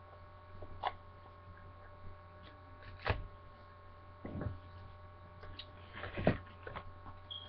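A steady electrical hum under a handful of light knocks and taps, the loudest about three seconds in and again near six seconds, as a phone box and its packaging are handled on a table.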